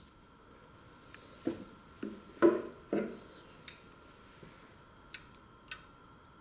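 Hands working on an electronics bench: four dull knocks in quick succession, then three sharp clicks spaced out over the next few seconds, over a faint steady high whine.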